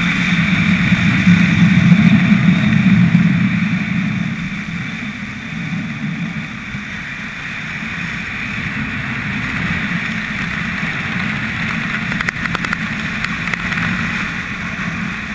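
Wind rushing over the microphone of a parachutist's helmet camera during the descent under canopy: a steady buffeting rumble. It is strongest in the first few seconds, then eases, with a brief crackle near the end.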